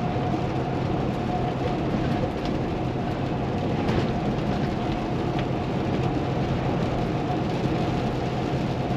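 Steady in-cab drone of a 2016 Kenworth T680 semi truck cruising at highway speed: its PACCAR MX13 diesel engine and road noise, an even sound with a steady hum.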